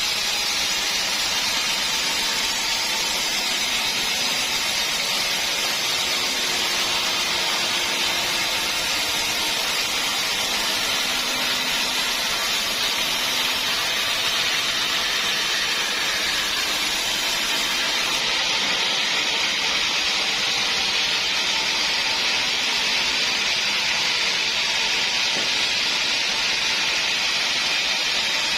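Sawmill saw running steadily with a constant hissing noise, as of the blade cutting through hard acacia wood.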